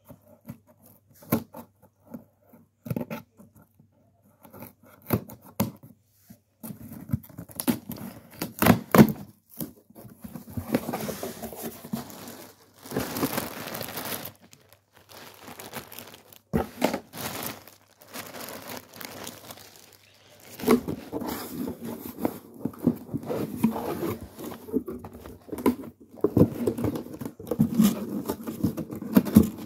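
A cardboard shipping box being opened by hand. First a blade scrapes through the packing tape in short strokes. From about six seconds in, the cardboard flaps are handled and a plastic bag crinkles and tears.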